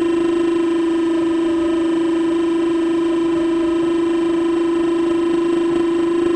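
RC excavator's motor whining steadily at one unchanging pitch.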